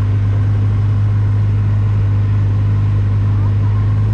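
Side-by-side utility vehicle's engine running steadily as it drives along, a constant low hum.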